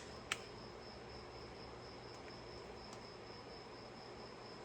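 Faint, steady high-pitched cricket trill, with two sharp clicks right at the start.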